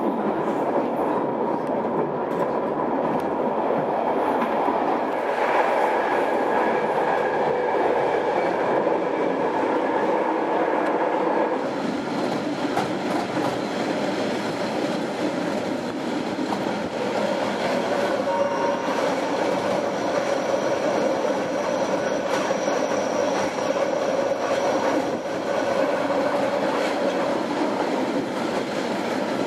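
A train in motion: steady running noise of wheels on rails, with faint whining tones that come and go.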